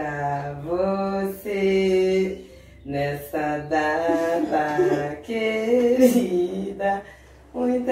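A song: a singing voice in held, gliding phrases with short breaks, over steady low accompanying notes.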